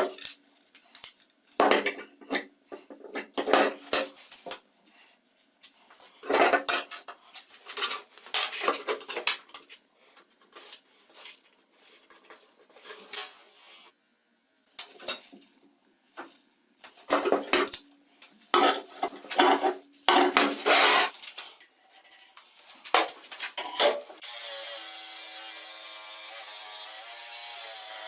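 Metal parts being handled, with irregular clinks and knocks, then a power tool starts about 24 seconds in and runs steadily to the end.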